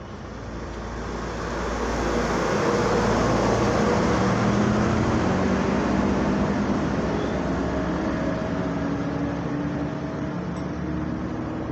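A motor vehicle passing on the road, its engine and tyres growing louder over the first two seconds, loudest around four seconds in, then slowly fading.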